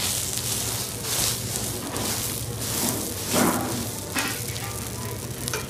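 Bread buns sizzling and crackling as they are pressed onto a hot flat griddle, over a steady low hum, with one brief louder noise about three and a half seconds in.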